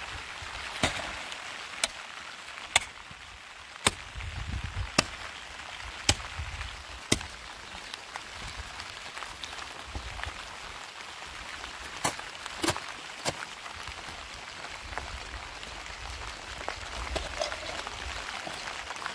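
Steady rain, with sharp taps about once a second for the first seven seconds and three more a little after twelve seconds in.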